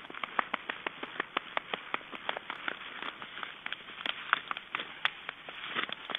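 Black storks mating on a stick nest: a quick, irregular run of sharp clicks and knocks, about five a second, over the rustle of flapping wing feathers.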